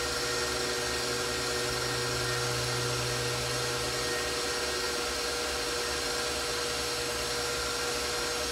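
Bowl-lift stand mixer motor running with a steady, even hum while it whips a batch of homemade marshmallow.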